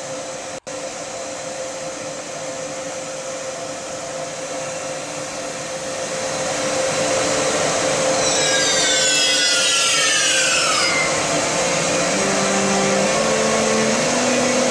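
ÖBB class 1016 Taurus electric locomotive pulling away: a steady hum with a held tone, several high whistling tones sweeping downward together about halfway through, then near the end the rising stepped tones of its traction converter as it accelerates.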